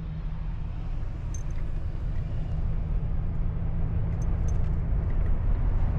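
Toyota 4Runner on the road, a steady low rumble of engine and tyre noise that grows gradually louder.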